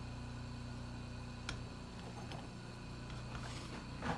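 Low steady hum of the grinder's electric motor, with a single click about a second and a half in. Right at the end comes the first scrape of metal rubbed along the mower blade's edge to take off the burr.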